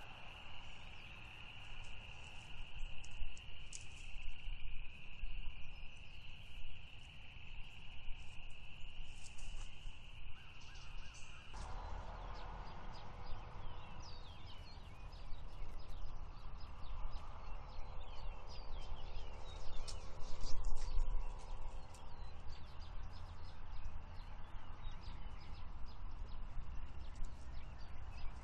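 Outdoor ambience: a steady high-pitched buzz like insects that cuts off abruptly about eleven seconds in, then a low rumble with scattered short bird chirps.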